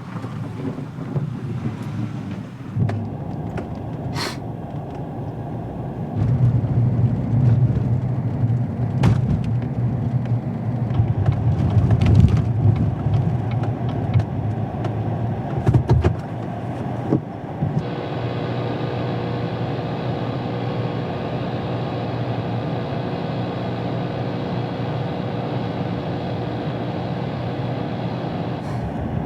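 An engine running with a heavy low rumble and a few sharp knocks; about two-thirds of the way in it settles into a steady, even drone.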